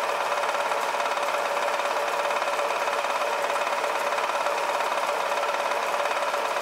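Milling machine running steadily with its cutter taking a cut across a cast bronze crosshead, a steady whine with several fixed tones.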